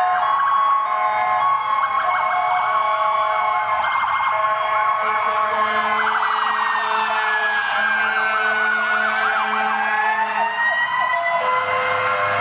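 Sirens of passing fire trucks and an ambulance sounding together: slow rising and falling wails overlapping with rapid yelps.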